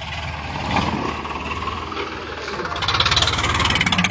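Swaraj 855 tractor's diesel engine running close by, with a rapid exhaust beat that grows louder about three seconds in.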